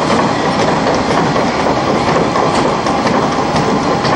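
Okuma MCR-B II double-column CNC machining center running: a steady, dense mechanical clatter with many small irregular ticks and rattles.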